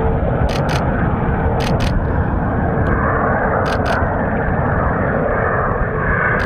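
Fighter jet engine noise, loud and steady, with pairs of short sharp clicks about once a second.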